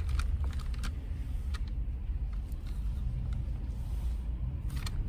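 A car driving slowly, heard from inside the cabin: a steady low rumble of engine and road, with a few faint clicks.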